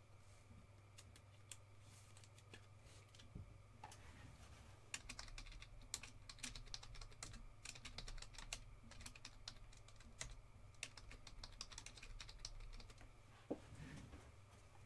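Computer keyboard typing: a few single keystrokes, then quick runs of faint key clicks from about five seconds in until shortly before the end, over a low steady hum.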